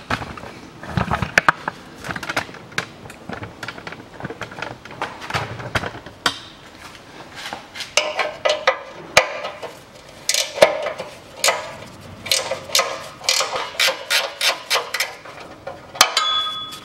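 Hand ratchet clicking in quick runs as a 14 mm crossmember bolt is unscrewed, with scattered metallic knocks of the tool. A short ringing metal clink near the end.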